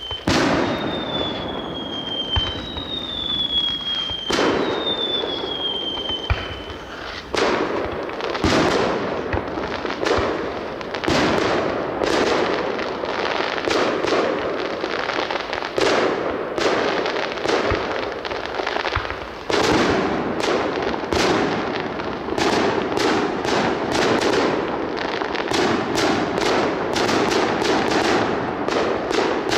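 Fireworks display: a few whistles falling in pitch in the first six seconds, then a run of sharp bangs and crackle that comes thicker and faster from about two-thirds of the way through.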